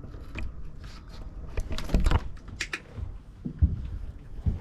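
A run of irregular clicks and knocks, several louder ones about two seconds in and again near the end, over a low rumble.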